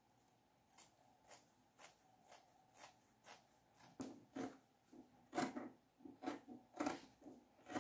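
Scissors snipping through layers of fabric: faint, regular snips about two a second, becoming louder and less even from about four seconds in.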